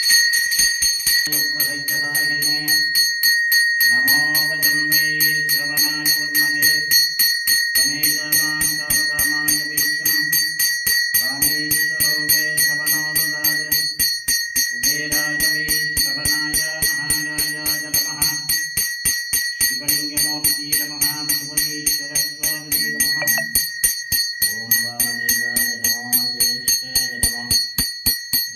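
A brass puja hand bell rung rapidly and without a break during the lamp aarti, its high ring steady over many quick strikes. Under it a devotional song goes on in long held phrases, each two to three seconds long with short breaks between.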